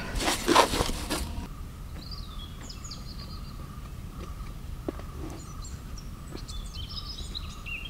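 Small birds chirping and tweeting in short scattered calls, in two clusters, over quiet outdoor ambience with a faint steady tone. In the first second or so, hands squish and rub crumbly rice-flour dough against a steel pot, cutting off suddenly about a second and a half in.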